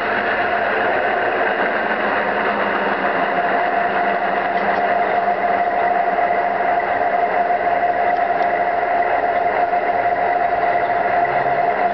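Garden-scale model railway locomotive running steadily, a mechanical engine-like drone with a steady tone joining about three seconds in.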